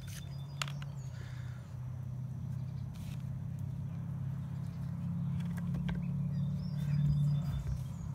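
Steady low engine drone that builds a little toward the end. Over it come a few light clicks as a knife cuts the plastic casing off a ham, and brief high bird chirps.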